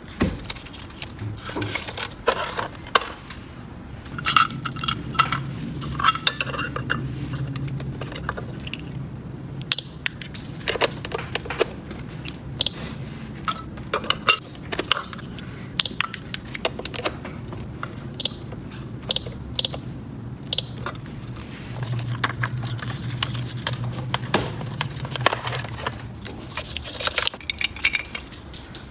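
Small plastic toy pieces clicking and clattering as they are handled and set down, irregularly, with a run of short high-pitched beeps in the middle.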